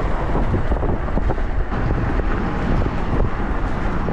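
Wind buffeting the microphone of an action camera on a moving e-bike: a loud, steady rumble, with vehicle traffic noise underneath.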